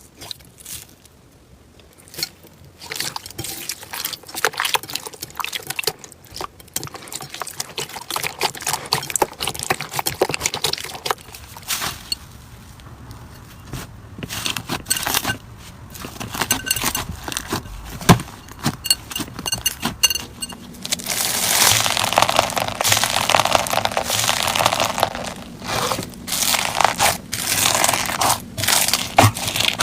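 Slime being pressed and squeezed by hands, giving off dense crackling and crunching with scraping; it grows louder and denser about two-thirds of the way in.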